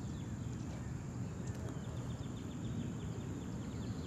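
Small birds chirping in short, falling notes, with a quicker run of chirps around the middle, over a low steady rumble.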